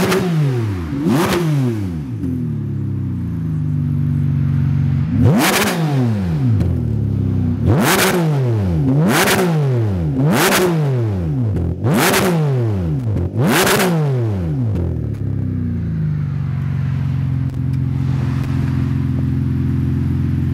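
Ferrari 599 GTB's V12 revved while standing, through a Supersprint aftermarket exhaust: two quick throttle blips, a few seconds of idle, then about six more blips, each falling back to idle. After the last blip it settles to a steady idle.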